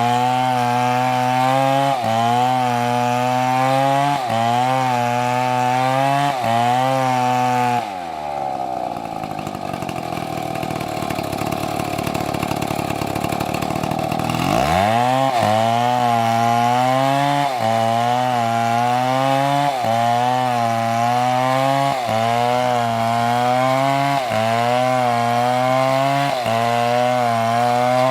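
A two-stroke chainsaw cutting into a tree under load, its engine note wavering about every two seconds. About eight seconds in the engine bogs down and its pitch falls for several seconds. Then it revs back up and carries on cutting.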